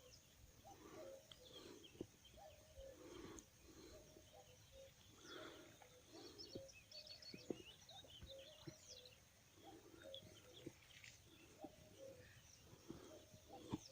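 Faint common cuckoo calling over and over, each call two notes falling from high to low, with small birds chirping. A few soft clicks sound now and then.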